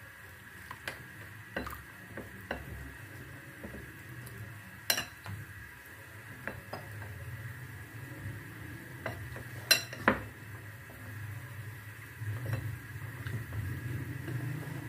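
Metal spoon stirring cornflour and water into a slurry in a glass bowl, scraping and clinking against the glass now and then, with two sharper clinks about five and ten seconds in.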